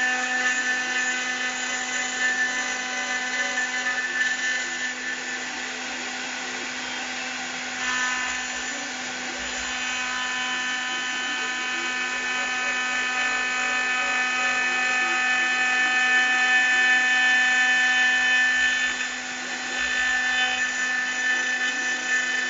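CNC milling spindle running with an end mill cutting text into aluminium: a steady whine of several tones over a hiss of cutting. The higher tones shift about eight seconds in and again near the end.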